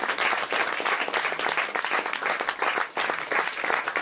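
Audience applauding: dense, steady clapping that runs on without a break.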